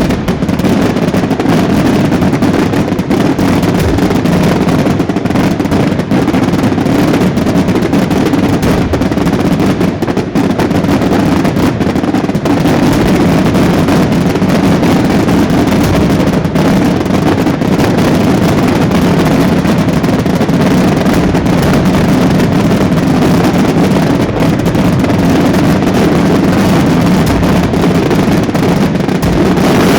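Dense, unbroken barrage of daytime fireworks: many detonations running together into one loud, steady rumble.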